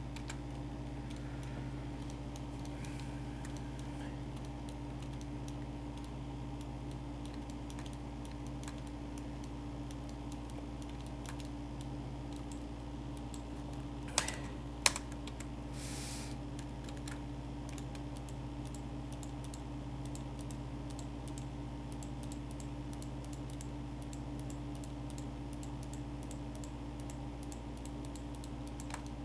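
Computer keyboard and mouse clicking sporadically over a steady low electrical hum, with two louder clicks about halfway through.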